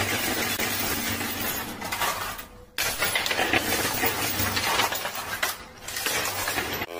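Poker chips and coins clattering and clinking on a coin pusher machine's playfield in a dense, continuous jingle. It dips briefly twice.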